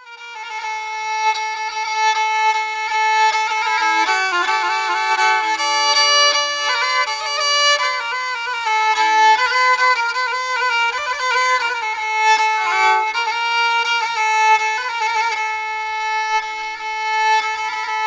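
Background music: a bowed fiddle playing a quick melody with trills and wavering ornaments over held notes, starting abruptly out of silence.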